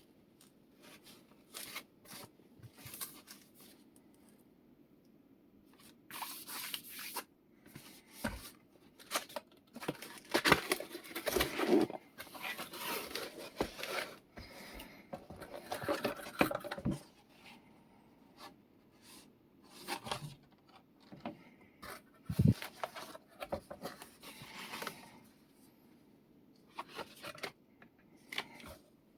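Keyboard packaging being handled and opened by hand: irregular scraping, rubbing and tearing of cardboard and plastic, with scattered knocks and clicks. The busiest stretch comes in the middle.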